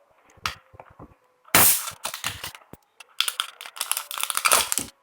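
Irregular clicking, clattering and rustling of small hard plastic pieces being handled, with a louder scrape about one and a half seconds in and a dense run of clatter near the end.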